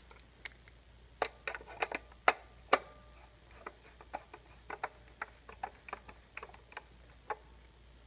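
Screwdriver turning a terminal screw on a fire-alarm pull station's terminal block to clamp a wire, giving irregular small metallic clicks and ticks, loudest about one to three seconds in.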